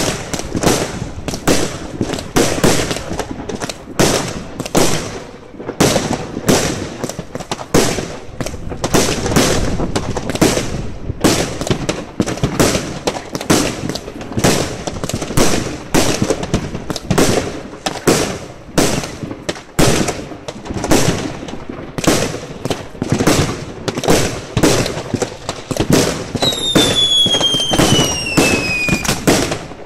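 Fireworks cake firing shot after shot, a continuous string of sharp bangs about two a second as comets launch skyward. Near the end a whistling firework gives one falling whistle lasting about three seconds.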